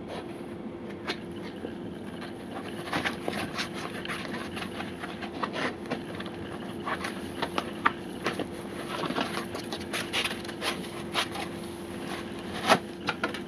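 Hands rubbing and unwrapping a sheet of packing foam, an irregular run of scrapes, rustles and small clicks, with a sharper knock near the end. A steady low hum runs underneath.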